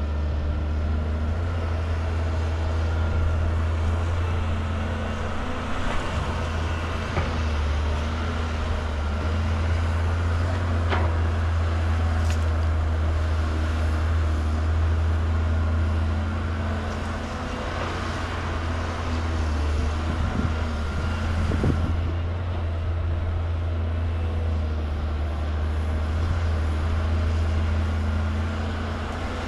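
Diesel engine of a Caterpillar 320GC excavator running steadily under load as it digs and loads a dump truck: a constant low engine drone, with a few faint knocks from the working machine.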